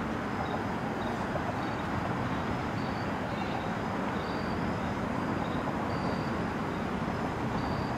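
Steady outdoor background rush, with faint short high chirps recurring every half second to a second.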